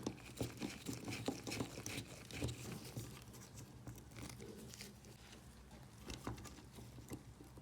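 Faint, irregular clicks and taps of a small screwdriver and small parts being handled while the motor driver board is unscrewed from the mini sumo robot.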